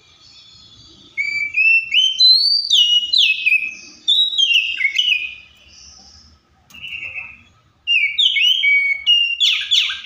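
Oriental magpie-robin (Copsychus saularis) singing: loud, clear whistled phrases of notes stepping up and down, starting about a second in. The phrases come in bursts broken by short pauses, with a quick falling run of notes near the end.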